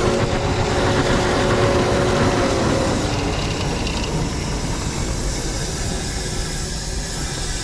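Aluminum-melting furnace's burner running, a loud steady rushing noise.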